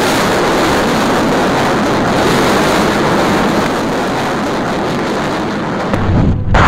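Rockets launching from ground launchers: a loud, steady roar of the rocket motors. About six seconds in it gives way to a lower rumble.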